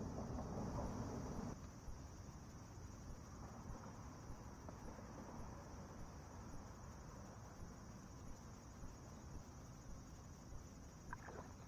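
Steady, faint high-pitched insect chorus, typical of crickets, droning without a break. A louder low rumbling noise runs under it for the first second and a half, and there are a few sharp clicks near the end.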